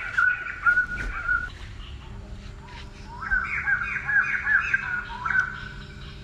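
Repeated high chirping animal calls, several short notes a second, in two bouts: one that fades about a second and a half in and another from about three seconds to five and a half.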